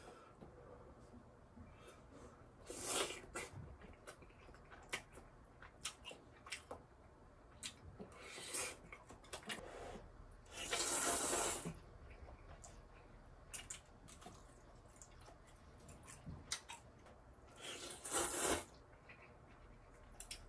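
A person slurping instant ramen noodles: four loud, hissy slurps, about three seconds in, near nine seconds, a longer one around eleven seconds and another near eighteen, with small short clicks between.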